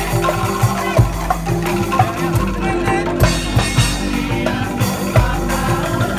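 Live street music from a band of wooden xylophones and barrel drums, an upbeat tune over a steady drum beat.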